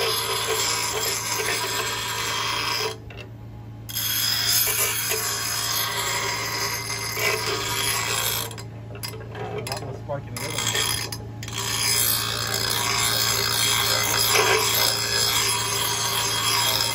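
Bench grinder's wheel grinding a dull metal garden-tool blade to sharpen it, a steady harsh hiss over the motor's hum. The grinding breaks off for about a second roughly three seconds in, and again in a few short gaps between about nine and eleven seconds, leaving only the motor's hum.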